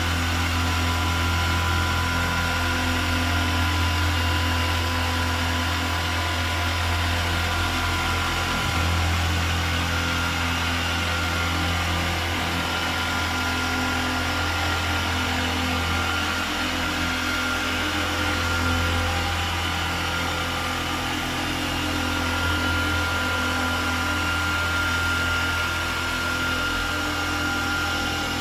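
Dual-action machine polisher running steadily with its pad on car paint, working in polishing compound: a continuous motor hum with a high, even whine over it.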